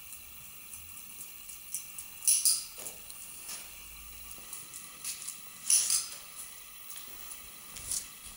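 Footsteps and a beagle's claws on a tiled floor, with a few short rustling, crackling bursts about two, five and a half and eight seconds in and small ticks between.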